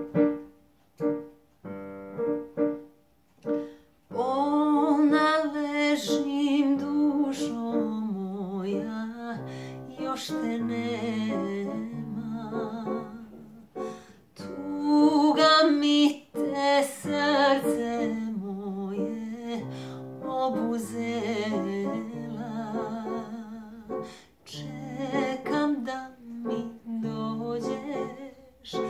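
Piano playing a slow, sparse introduction of a few separate chords. From about four seconds in, a woman's voice sings a slow melody with vibrato over the piano.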